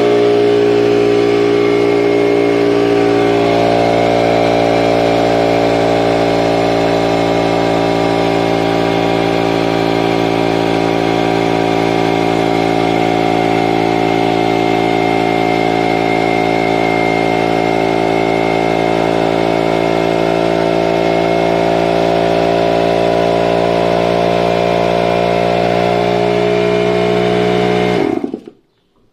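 Stanley 1.5 HP, 5-litre, 10-bar portable air compressor running steadily with a motor hum as it fills its tank. It stops abruptly near the end while the power switch stays lit, as when the pressure switch cuts out at full tank pressure.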